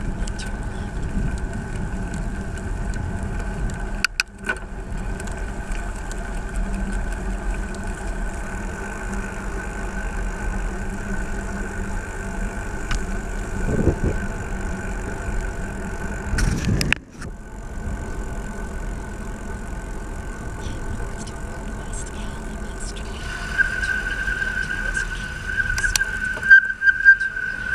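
Riding along a busy road: steady traffic rumble and wind noise, with a few passing vehicles swelling up. A thin, steady high whine runs throughout and grows louder and starts pulsing near the end.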